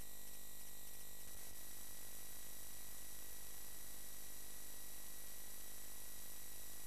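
Steady electrical hum and buzz with a faint high-pitched whine, signal-line noise with no program sound or voice on top; its texture shifts slightly about a second in.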